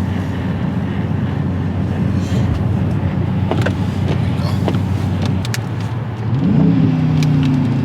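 Hemi V8 car heard from inside the cabin, cruising with a steady low rumble and road noise. About six seconds in, the engine note rises and grows louder as the car speeds up. A few light clicks come in the middle.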